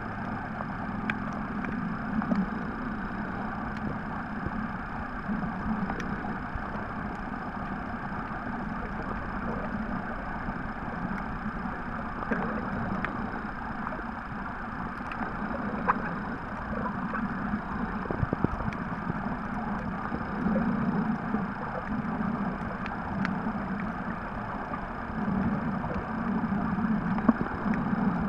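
Underwater ambience picked up by a submerged camera: a steady muffled hum and hiss with a low rumble that swells and fades in slow pulses, and scattered faint clicks.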